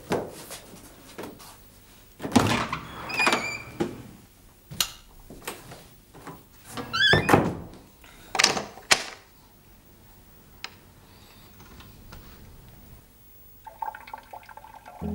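A wooden door being handled: a series of thuds and bangs, some with a short squeak of the hinge. Soft music comes in near the end.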